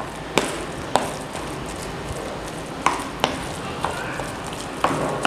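A spoon stirring and pressing raw minced mutton mixed with gram flour in a plastic bowl, with irregular sharp clicks of the spoon knocking against the bowl.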